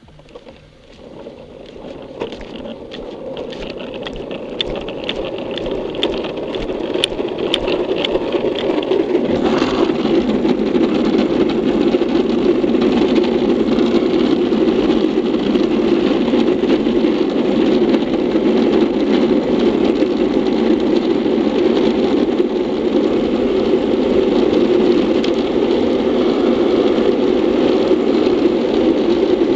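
Rushing wind on a helmet-mounted camera and urethane wheels rolling on asphalt as a classic luge board gains speed down a hill. The noise builds over the first ten seconds or so, then holds steady and loud. A quick run of light ticks sounds in the first several seconds.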